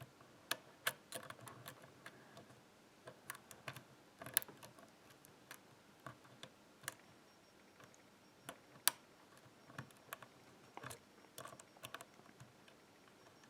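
Faint, irregular metallic clicks and ticks of a lock pick and tension wrench working the pins of an old Yale pin-tumbler rim cylinder, as the picker tries to set a binding pin. A few clicks stand out louder, about four seconds in and again near nine seconds.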